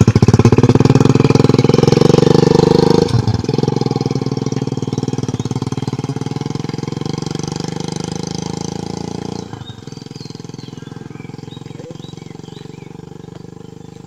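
Small commuter motorcycle pulling away, its engine loud and rapidly pulsing at first. The note breaks briefly about three seconds in, then fades steadily as the bike rides off into the distance.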